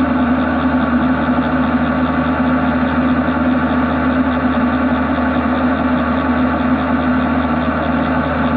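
CNC machining centre running steadily, its spindle turning a long anti-vibration boring bar at 616 rpm in a grey cast iron (GS200) casting under flood coolant. It makes an even machine hum with one strong low note and no breaks.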